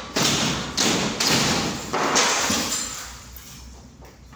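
Gypsum-board ceiling panels being broken off and pulled down: a handful of heavy thuds and cracks in the first two and a half seconds, each trailing into crumbling noise, then dying down.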